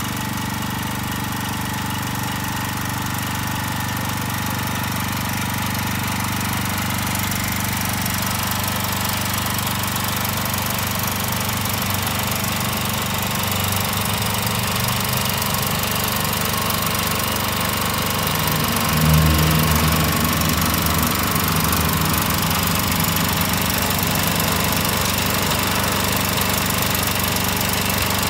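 Robin 6 hp engine on a walk-behind tiller with a plow attachment, running steadily and growing louder as the machine comes closer. About two-thirds of the way through it briefly runs louder and deeper.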